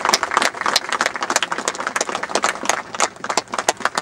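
A small crowd applauding, with many hand claps that thin out near the end.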